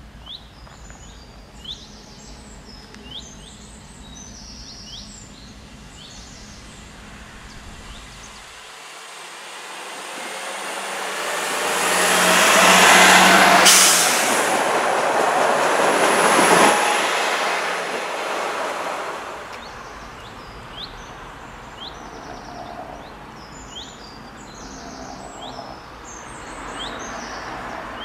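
Birds chirping, then a train passing: its rumble and rail noise swell over several seconds, peak with a high steady whine and one sharp click, and fade away again, leaving the birdsong.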